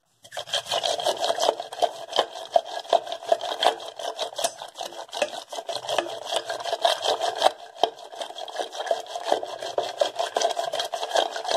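A wooden spatula is stirring curd briskly in a steel bowl, making a fast, continuous run of scrapes and knocks of wood against the metal.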